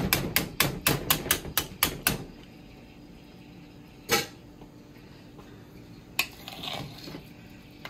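A kitchen utensil knocking against a pot of mashed potatoes: a quick run of about ten clicks in the first two seconds, then a few single knocks.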